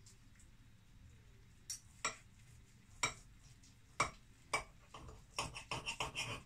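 Metal cutlery clicking and scraping against a ceramic bowl while cutting into a duck breast on rice: a few separate taps about a second apart, then a quicker run of clicks near the end.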